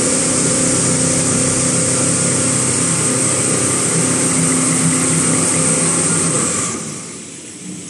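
Toilet-roll and kitchen-towel paper rewinding line running: a loud, steady machine hum with several low tones under a bright hiss. Near the end the hiss drops away and the sound gets quieter.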